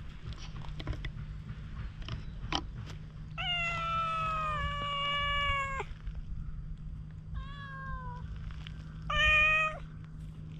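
Stray tabby cat meowing three times: one long call with a slightly falling pitch, then a shorter falling meow, then a short, louder meow near the end.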